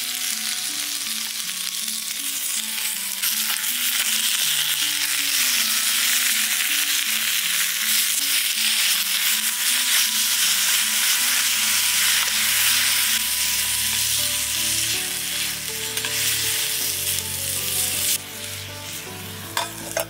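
Beef slices and garlic cloves sizzling loudly in a 16 cm one-handed grill pan over a campfire while they are stirred and turned with tongs. Near the end the sizzle drops as a lid goes on the pan, with a light clink.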